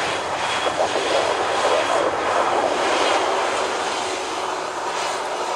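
Airliner engines running as an aircraft moves near the airport runway, a steady loud rush of engine noise.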